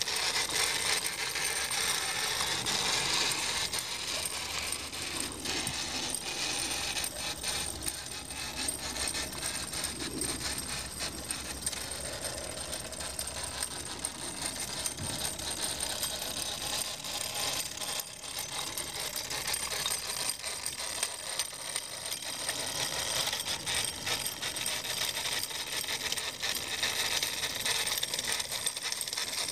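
Wilesco D36 model steam roller running under its own steam, its small steam engine and gear drive making a steady, rapid metallic clatter.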